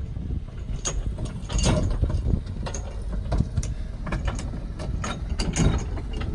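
Steady low rumble of a wooden boat's engine under way, with scattered knocks and clicks on top, the loudest about two seconds in and again near the end.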